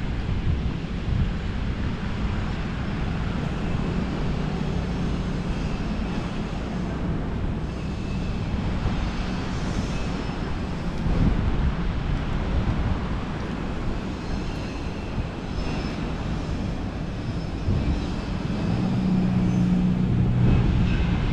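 Steady low rumble of city engines and traffic, with a deeper engine hum growing louder about nineteen seconds in.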